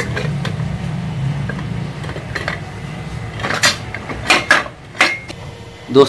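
A screw-type puller is turned against a ceiling fan's metal housing, with a steady low rumble. From about halfway there are four or five sharp metallic clanks and clinks as the housing comes apart and its metal parts knock together.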